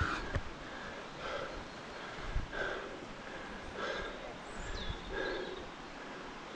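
Rock climber breathing hard in regular, repeated breaths close to a helmet-mounted microphone, with a few low knocks from contact with the rock or gear.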